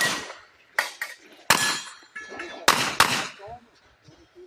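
Gunshots fired at a shooting range: six sharp reports in an uneven string, each with a short ringing tail.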